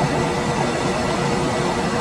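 Room air conditioner running steadily: an even rush of fan and air noise with a faint steady high whine and a low hum.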